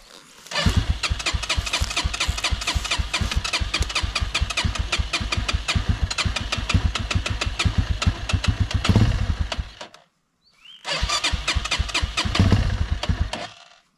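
Minsk X250's single-cylinder 250 cc engine cranked on the electric starter in a fast, even chug for about nine seconds without catching, then, after a short pause, cranked again for about two and a half seconds, still not starting.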